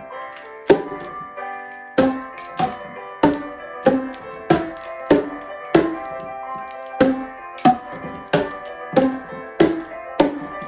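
Boomwhackers, tuned plastic tubes, struck on the floor and against one another in a steady beat of pitched strikes, a little under two a second.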